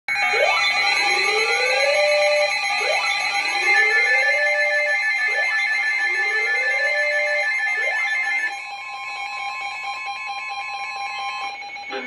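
A chorus of weather alert radios sounding their alarms together for an incoming severe thunderstorm warning: several steady beeping tones layered with a rising whooping siren that repeats about every two and a half seconds. Most of the alarms drop out about eight and a half seconds in, leaving a single steady tone that cuts off near the end.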